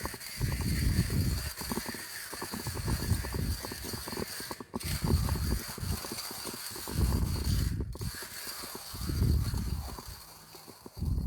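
Timemore Chestnut Slim hand grinder crushing coffee beans as its crank is turned: a dense crackle of beans breaking in the burrs, swelling and easing about every two seconds.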